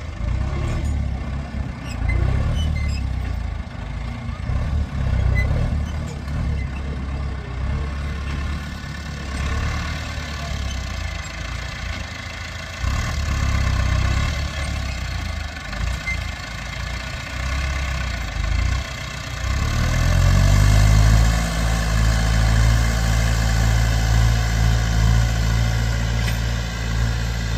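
Massey Ferguson 290 tractor's four-cylinder diesel engine running. About twenty seconds in it revs up to a louder, higher, steady note and holds there.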